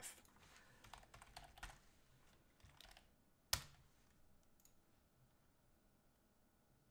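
Faint typing on a computer keyboard: a quick run of keystrokes over the first two seconds, a few more near three seconds, then one sharp, louder click about three and a half seconds in.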